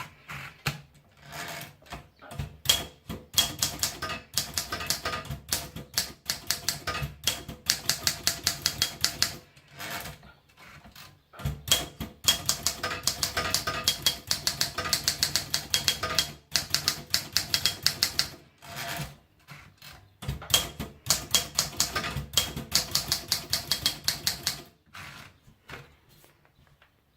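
Royal typewriter being typed on: rapid runs of key strikes, several clacks a second, with two short pauses along the way, tapering off near the end.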